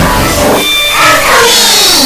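Loud, heavily distorted and pitch-shifted cartoon intro music from a "G Major" audio-effect edit, with swept falling tones through the second half.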